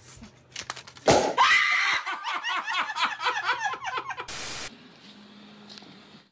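A woman laughing hard: a rapid run of high-pitched laughs for about three seconds, ended by a brief burst of noise.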